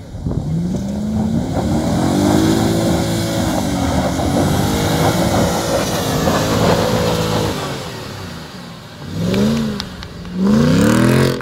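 Volkswagen Touareg V8 engine revving hard under load as the SUV climbs a steep hill, its pitch rising and falling with the throttle. It eases off about eight seconds in, then gives two short revs near the end, the last one loud.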